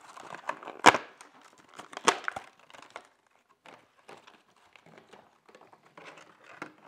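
Clear plastic packaging crinkling and rustling as it is opened by hand, with two sharp snaps about one and two seconds in, then scattered light crackles.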